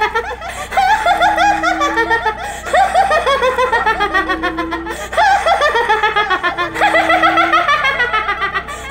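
A woman's loud, mocking cackle in long, rapid peals, a hideous jeering laugh. A short low steady tone sounds under it about every three seconds.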